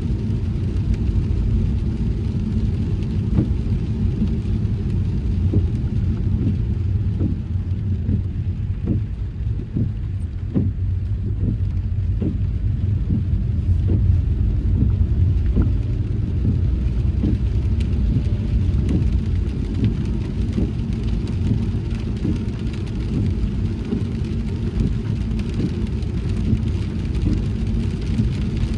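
Car driving on a wet road: steady low rumble of tyres and engine, with scattered light taps of raindrops on the car, most of them in the first two-thirds.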